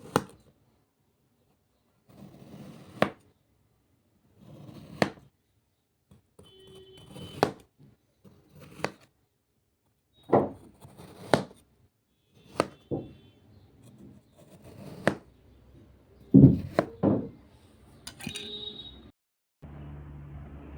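Kinetic sand being cut: each stroke is a soft crunching drag through the sand that ends in a sharp tap of the blade against the tray, about a dozen cuts one to two seconds apart. A steady hiss begins near the end.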